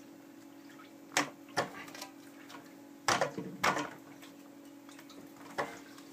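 About five sharp plastic clacks at irregular intervals, the loudest as a close pair near the middle: a plastic housing wrench knocking and slipping against a reverse osmosis filter housing that is screwed on very tight. A faint steady hum runs underneath.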